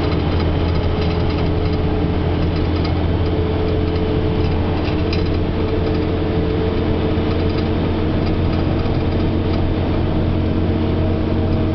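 Steady car cabin noise on a highway: a low engine and road drone with a couple of steady hum tones above it.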